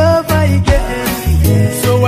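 Reggae song playing: a deep bass line pulsing on the beat, with a melody line gliding over it between vocal phrases.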